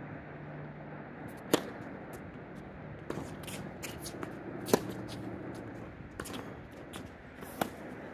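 Tennis rally on a hard court: three sharp racket-on-ball hits about three seconds apart, the first a serve, with fainter hits from the far end in between. Shoes scuff on the court between shots.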